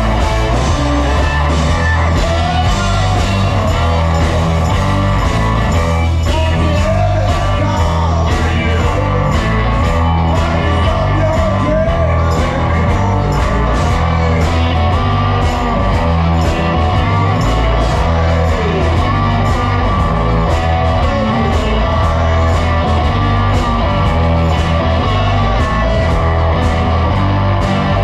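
Live blues-rock band playing: electric bass, drums and electric guitar at a steady beat, with some singing.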